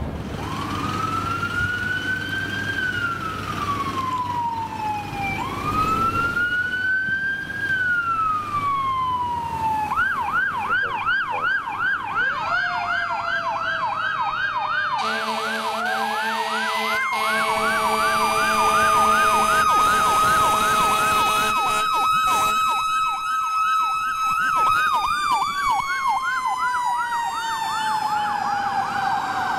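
Fire truck sirens responding: an electronic siren wails slowly up and down twice, then switches to a fast yelp about ten seconds in. Midway a second siren rises slowly, holds a steady pitch and falls slowly near the end, while a deep horn blares for several seconds.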